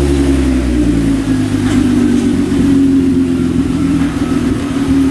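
Hyundai Genesis Coupe 3.8L V6 idling steadily through its factory exhaust pipes fitted with Flowmaster 80 series mufflers, the stock exhaust sound before a downpipe swap.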